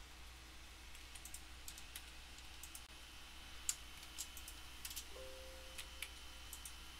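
Faint, sparse computer keyboard keystrokes and clicks. About five seconds in comes a short faint chime, the Windows alert for an Excel formula error.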